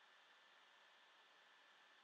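Near silence: faint steady hiss of room tone, with a thin high steady whine.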